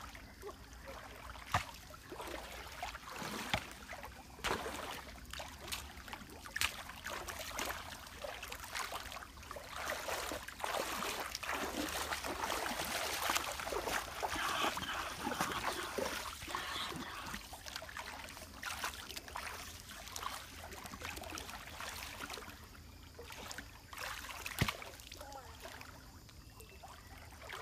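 Bare feet wading through a shallow stream, with scattered splashes and water trickling; the splashing is louder and busier around the middle.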